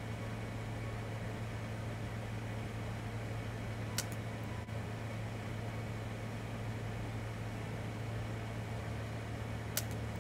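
A steady low mechanical hum, with two short, sharp snaps about six seconds apart; the first comes as a compound bow is shot.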